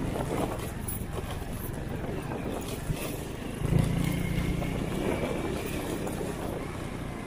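Honda Win 100 motorcycle engine running as it is ridden over rough dirt. The throttle opens up again a little before four seconds in. There is a short knock about three seconds in.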